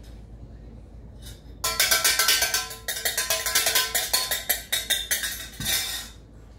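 Stainless steel saucepan banged and rattled with a metal utensil: a loud, dense clatter of rapid metallic strikes with ringing, starting about a second and a half in and stopping about six seconds in. This is a noise-startle check from a puppy temperament test.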